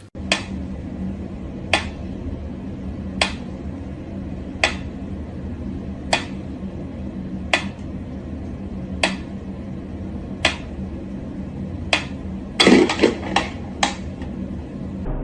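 Sharp knocks evenly spaced about every second and a half, over a steady low hum. Near the end comes a quick flurry of louder, clattering knocks.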